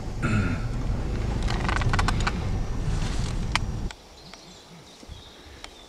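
Steady low rumble of a car driving on a rough forest track, heard from inside the cabin, with a cluster of sharp clicks and rattles. It cuts off abruptly about four seconds in, leaving quiet woodland with a few faint bird chirps.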